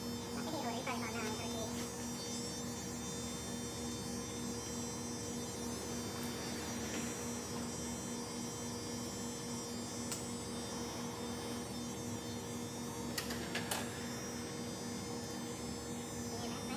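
Cordless electric hair trimmer running with a steady hum as it cuts a child's hair. A couple of faint clicks come near the end.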